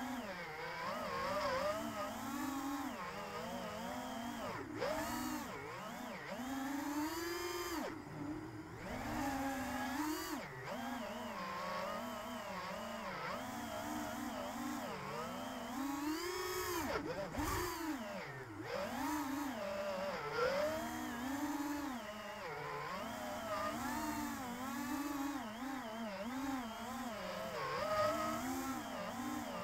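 FPV quadcopter's brushless motors and HQProp propellers whining in flight, the pitch rising and falling constantly with throttle changes, with brief drops about 8 and 18 seconds in.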